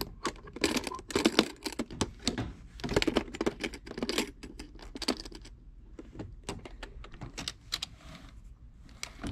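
Metal latches of an aluminium carry case clicking and clattering as they are worked open by hand, then the lid being opened. A quick run of sharp clicks and rattles through the first half, with fewer, scattered clicks after.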